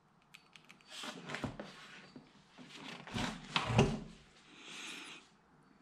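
Handling sounds of a metal outside micrometer being worked on and lifted off an engine piston: small clicks and scrapes, a sharper knock a little under four seconds in, then a soft rustle.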